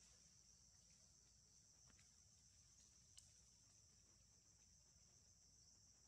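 Faint, steady high-pitched insect chorus, with a single sharp click about three seconds in.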